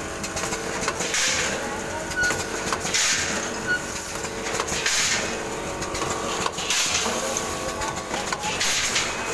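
Automatic multihead pouch packing machine running, a steady hum with clicking and a short hiss about every two seconds as it cycles through its pouch-sealing strokes.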